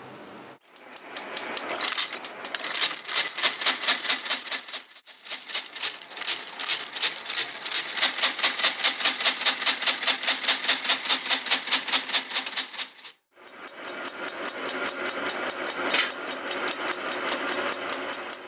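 Sole-stitching machine sewing a new outsole onto a boot, running in rapid even strokes of about five stitches a second. It stops briefly about five seconds in and again near thirteen seconds, then runs on.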